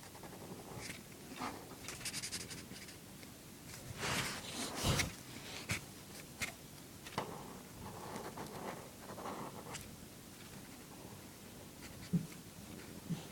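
A drawing tool scratching on paper in short, irregular strokes, with a louder rub and a knock about halfway through.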